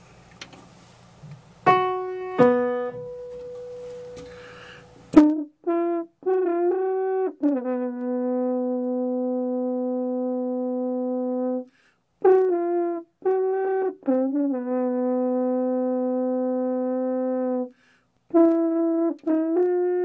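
Two piano notes struck about two seconds in, ringing until cut off, then a French horn playing short phrases of quick notes. Twice a phrase settles on a long held note of three to four seconds, and a new run of notes starts near the end.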